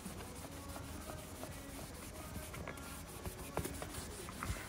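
A cloth wiping and rubbing a motorcycle's plastic body panel clean with a cleaning fluid, with short faint squeaks and small clicks along the way.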